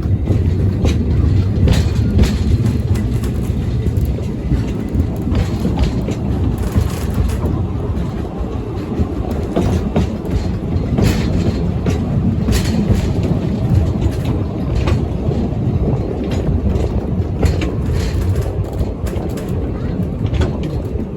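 Narrow-gauge train running along the line: a steady low rumble with irregular clicks of the wheels passing over rail joints.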